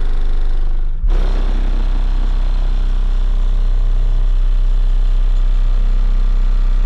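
Car-audio subwoofer in a VW Polo playing a loud, very deep, steady bass tone, with a short break about a second in.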